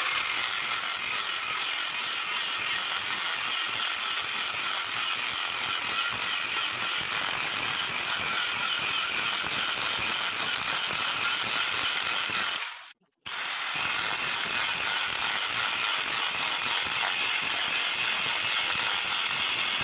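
Angle grinder cutting into the steel shell of a compressor to open it: a steady high grinding that stops briefly about thirteen seconds in, then carries on.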